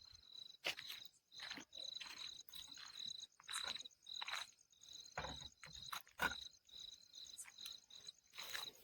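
Crickets chirping in a steady, pulsing high trill, with irregular footsteps about once a second.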